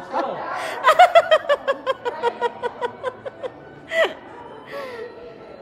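A person laughing in a run of short, quick bursts that die away about three and a half seconds in, followed by a brief sharp sound about four seconds in.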